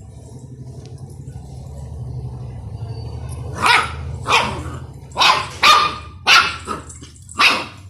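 Puppy barking, about six short barks in quick succession starting about halfway through, over a steady low hum.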